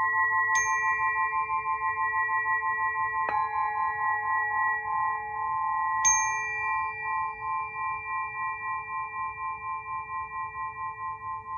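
Crystal singing pyramid struck three times, about three seconds apart, each strike setting off a long ringing tone with a steady wavering pulse that slowly fades after the last strike.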